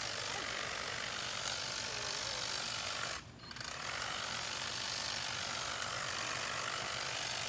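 Hedge trimmer running with its reciprocating blades chattering as they cut through shrub foliage. It stops briefly a little over three seconds in, then runs on.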